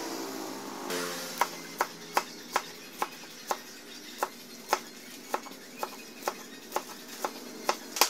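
A broad forged bearing-steel knife chopping leafy greens against a wooden chopping board, with evenly spaced sharp chops about two a second as the blade is tested on the vegetables.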